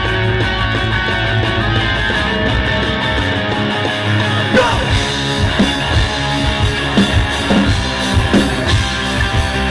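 Live rock band playing loud: distorted electric guitars and electric bass hold sustained chords, then the drums come in about halfway with a steady beat of about two hits a second.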